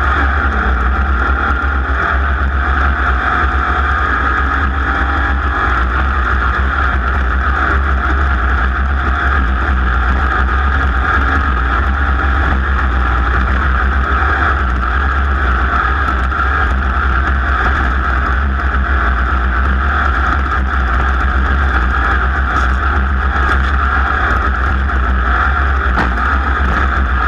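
Off-road race car running hard during a race lap, its engine and the rush of wind and terrain noise holding a loud, steady drone without let-up.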